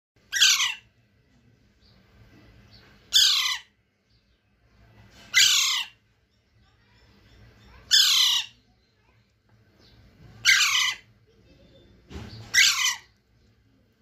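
Alexandrine parakeet chick squawking: six harsh calls, each falling in pitch, about two to three seconds apart, the last one doubled. These are a hand-fed baby parrot's begging calls.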